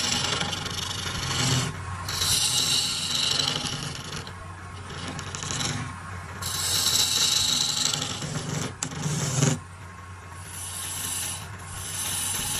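Hand-held steel turning tool cutting into spinning wood on a lathe: a rasping, scraping hiss of shavings being cut that swells and eases in several passes with short lulls, over a low steady hum.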